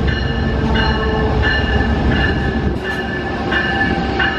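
Amtrak train hauled by an ACS-64 electric locomotive pulling into a station platform: a steady low rumble of the passing train with repeated high-pitched squeals coming and going as it slows.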